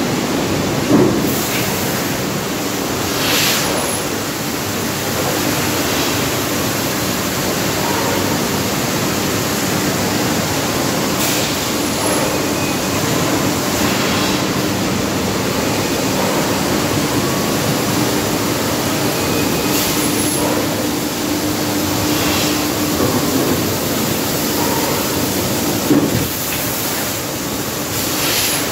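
Techne Twin 400 extrusion blow moulding machine running in production: a loud, steady machine din with a low hum, and short hisses recurring every few seconds.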